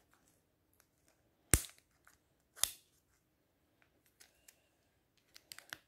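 Two sharp plastic clicks about a second apart, the first the loudest, as fingers work at a Kinder Joy's plastic egg shell to pry it open, with faint handling ticks between.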